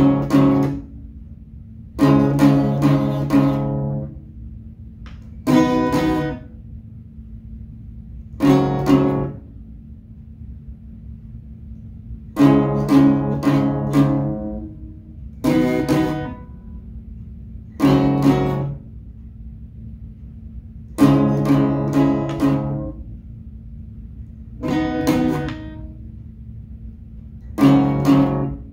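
A beginner strumming chords on an acoustic guitar in short bursts, each a second or two long, with pauses of about a second between them.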